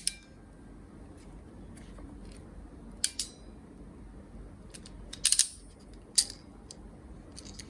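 Hand crimping tool being squeezed on an RJ45 connector fitted to Cat6 cable: short sharp clicks, a pair about three seconds in, a quick cluster a little after five seconds and one more about six seconds in.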